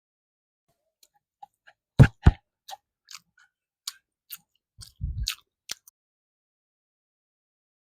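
Close-miked mouth sounds of someone eating egg curry and rice: a scatter of wet clicks and smacks from chewing. Two loud low thumps come about two seconds in, and a short low rumble around five seconds.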